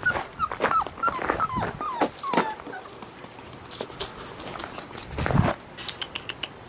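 A blue merle Australian Shepherd puppy crying: a string of about eight short, high-pitched cries, each falling in pitch, over the first two and a half seconds. A brief loud noise follows a little past five seconds in.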